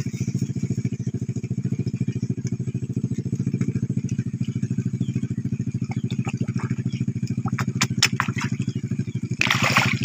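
A small engine running steadily in the background, its even pulsing unbroken, with a few sharp clicks about eight seconds in and a brief splash of water near the end.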